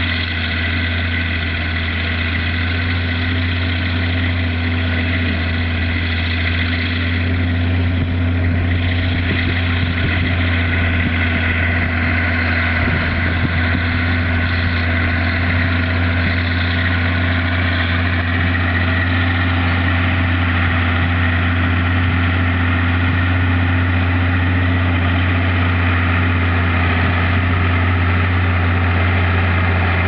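Massey Ferguson 6170 tractor's four-cylinder diesel engine running steadily under load while pulling a plough through the soil, growing a little louder in the second half as it comes closer.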